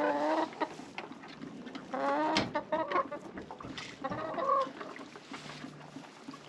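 Hens calling as they crowd a poultry waterer to drink: three separate calls, about two seconds apart, with small clicks between them.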